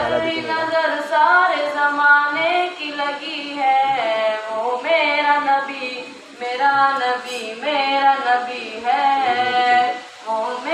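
A single high voice singing a naat, an Urdu devotional song in praise of the Prophet, unaccompanied, with long ornamented held notes and short pauses for breath.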